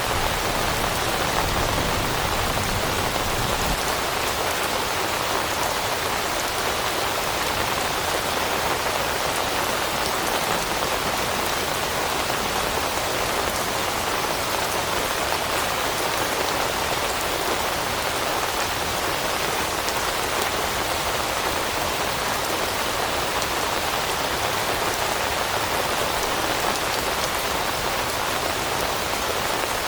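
Steady rain pattering on leaves, an even hiss of many raindrops with no let-up.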